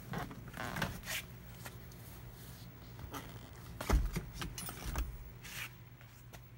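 Handling noise of a handheld phone camera being moved against clothing: scattered rustles and clicks, with a low thump about four seconds in and another about a second later, over a steady low hum.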